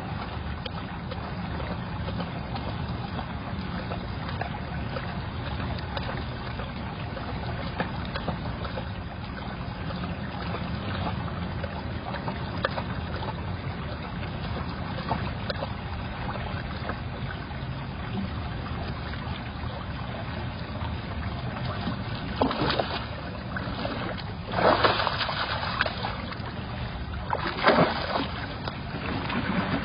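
Steady low hum and hiss of a security camera's microphone, broken near the end by three bursts of splashing as a tiger moves through the pool water.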